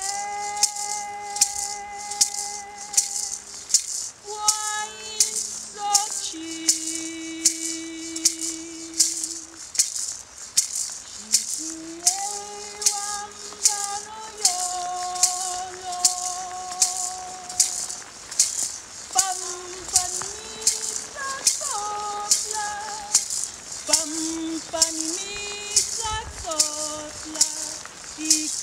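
A woman singing a Náhuatl song in long, held notes, with a couple of short pauses, over a steady beat from a hand-held gourd rattle.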